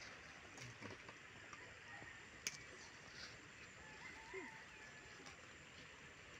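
Quiet outdoor background with a faint hiss, one sharp click about two and a half seconds in, and faint bird calls a little after four seconds.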